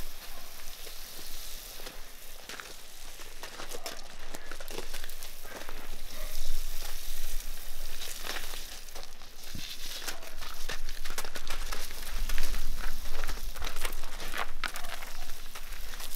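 Garden hose spraying water onto a foal's coat and the gravel around it: a steady hiss and spatter, broken by scattered short crunches of hooves shifting on the gravel.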